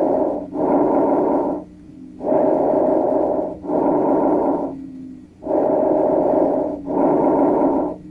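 Recorded bronchovesicular breath sounds: three breaths, each a rushing inspiration and expiration of about equal length with a short break between them. The equal phases are the mark of bronchovesicular breathing, normal over the manubrium and a sign of pathology such as consolidation, a cavity or carcinoma when heard over other lung fields.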